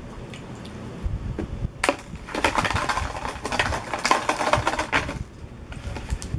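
Plastic snack and candy wrappers being handled and crinkled: a sharp click nearly two seconds in, then dense crackling for about three seconds.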